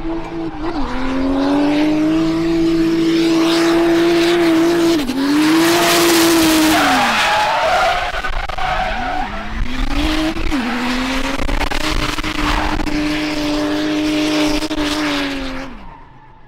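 Drift car engine held at high, steady revs through a long slide, with several brief drops in revs and recoveries, over the hiss and squeal of the spinning rear tyres; the sound fades away near the end.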